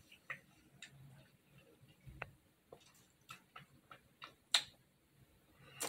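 Faint, uneven small clicks and ticks, about a dozen, with one sharper click about four and a half seconds in.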